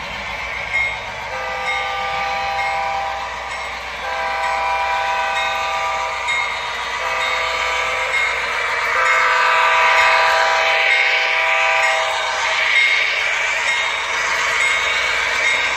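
Model diesel locomotive's sound decoder sounding its horn four times, long, long, short, long (the grade-crossing signal), over a steady diesel running sound, heard through the model's small speaker.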